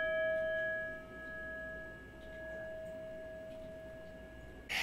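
A single struck bell tone with a few clear overtones, ringing on and slowly fading away.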